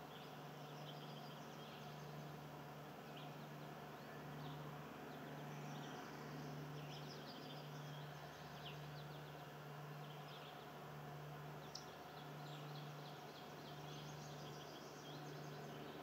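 Faint, distant birds chirping in many short, scattered calls over a steady low hum and background noise.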